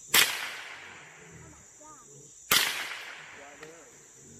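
Two gunshots about two and a half seconds apart, each cracking sharply and then echoing away over a second or more.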